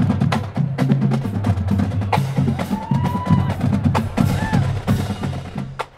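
Percussion-heavy music: a fast run of sharp snare and drum strokes over deep, changing drum or bass notes. It drops away just before the end.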